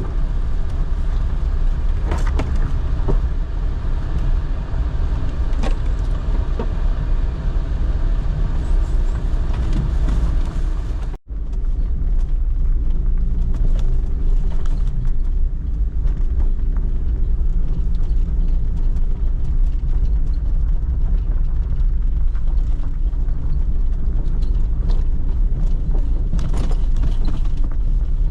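A vehicle on the move: a steady low rumble with scattered creaks and clicks. It briefly cuts out about eleven seconds in, then carries on.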